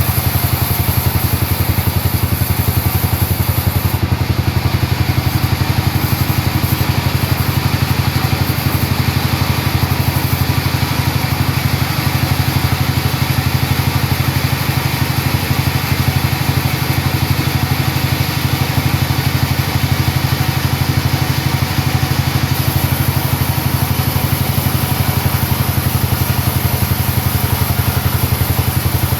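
An engine, likely the sawmill's, running steadily at a constant speed with a dense low throb.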